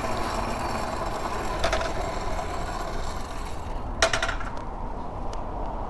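A mini bike moving slowly with a steady mechanical rattle and clicking, and one sharp click about four seconds in.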